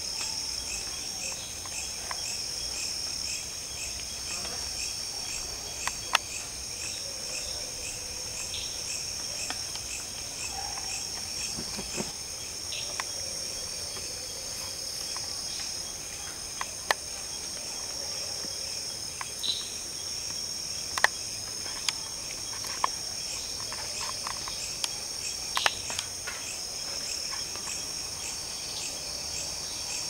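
Nocturnal insect chorus: several insects trilling steadily at high pitch, one of them in an even pulse, with scattered sharp clicks now and then.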